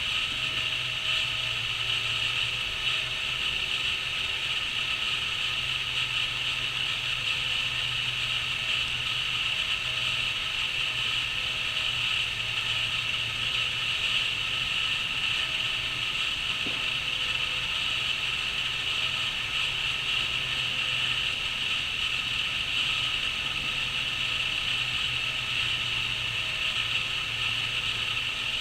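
Crickets chirring in a dense, unbroken chorus, high-pitched and steady.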